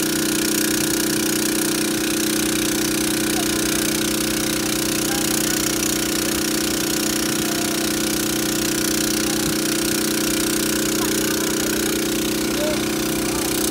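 Heavy diesel engine running steadily at one speed, with a rapid low pulsing under a steady hum.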